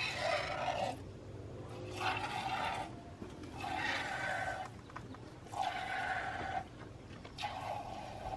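Milk squirting from a cow's teats into a small plastic cup during hand milking, in regular spurts about a second long, repeating every couple of seconds.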